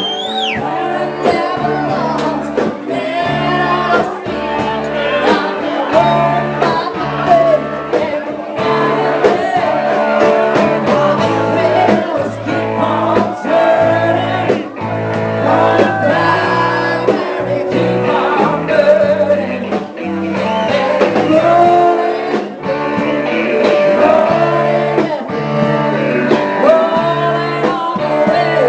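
A live band playing rock-and-roll music, with guitar, a bass line and a singer.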